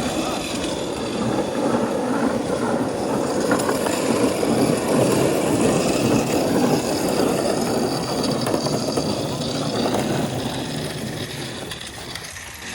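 A vehicle running, a dense rumbling noise that swells through the middle and fades away near the end.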